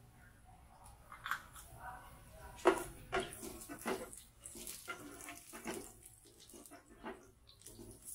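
Black spatula scraping and tapping against a frying pan in short, irregular strokes, stirring garlic, ginger and star anise in hot oil.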